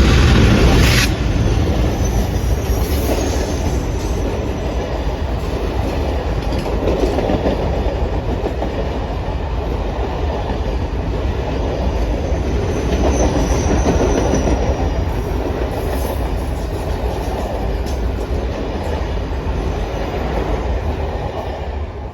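Train rolling past at close range, a continuous rumble with the clatter of wheels over the rail joints and faint high wheel squeal now and then.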